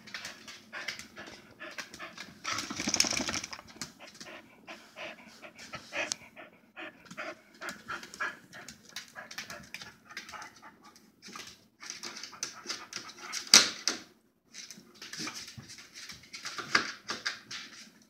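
Corgi panting and sniffing hard at the bottom edge of a refrigerator, with many short clicks of its claws on the tile floor. Louder stretches come about 3 s in and again near 13 s.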